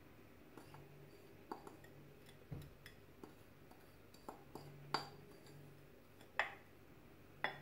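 A metal utensil scraping and tapping against a glass bowl as icing sugar is knocked out into a stainless-steel mixing bowl: scattered light clinks, with a few sharper knocks in the second half.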